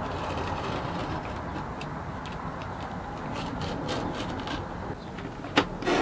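Utility knife slicing through a sheet of leather, a steady scraping cut along a steel square, with a few sharp clicks near the end.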